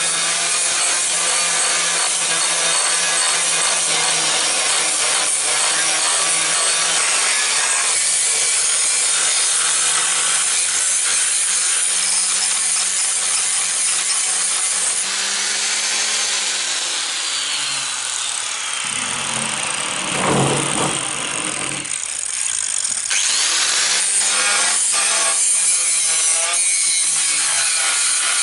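Four-inch angle grinder grinding a steel knife blade: a steady, harsh grinding hiss over the hum of the grinder's motor. About halfway through the grinding eases and the motor's pitch falls, then it rises again and the grinding resumes.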